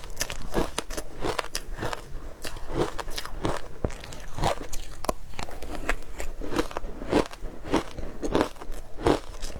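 Frozen matcha ice being crunched between the teeth close to the microphone: a steady run of crisp crunches, about one or two a second.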